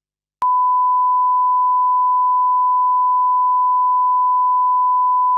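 Steady single-pitch test tone, the reference tone played with colour bars, switching on abruptly with a click about half a second in after silence.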